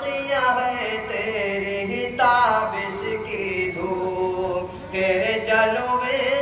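Male voices singing an Urdu farewell tarana in long, drawn-out melodic phrases without clear words, a new phrase starting about two seconds in and again near five seconds.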